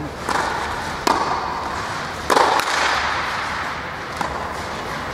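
Tennis ball struck by rackets and bouncing on a clay court during a rally, about four sharp knocks with the loudest about halfway through, echoing in a large indoor hall.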